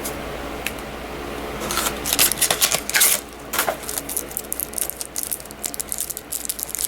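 Trading cards being handled and flicked through by hand: a run of quick clicks and paper rustles that gets denser and faster about four seconds in.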